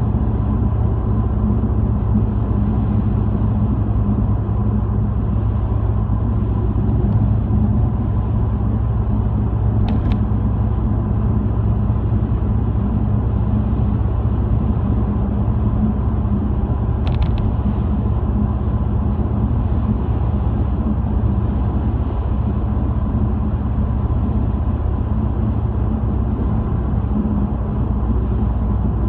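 A car driving at steady speed: a low, even rumble of engine and tyres on pavement heard from inside the cabin, with two faint brief clicks about ten and seventeen seconds in.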